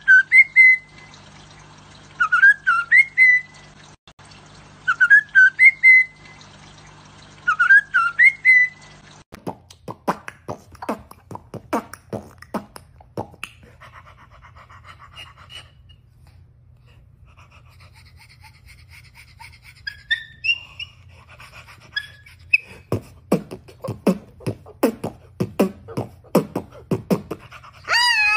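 A caged white-rumped shama sings the same short whistled phrase four times, about every three seconds. Then come rapid runs of mouth clicks and a few short whistles as a man and a white cockatoo trade sounds face to face, ending in a loud wavering call that falls in pitch.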